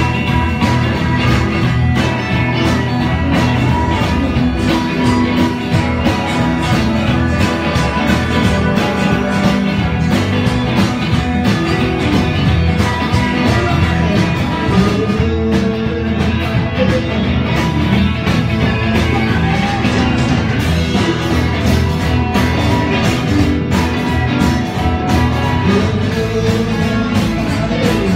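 Live rock band playing: strummed acoustic guitar and electric guitar over a drum kit, with a steady beat.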